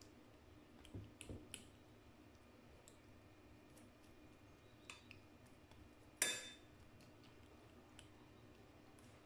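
Metal fork clinking against a ceramic bowl while stirring beaten egg: a few scattered light clicks, with one louder, ringing clink a little after halfway.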